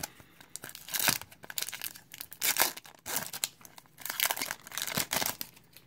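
Foil wrapper of a Topps Chrome trading card pack being torn open and crinkled by hand: a run of irregular crackles and rips.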